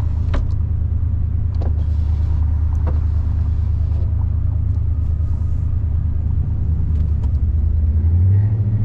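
Car engine droning with road noise, heard from inside the cabin while driving at speed, with a few short light knocks. About eight seconds in, the engine note rises as the car speeds up.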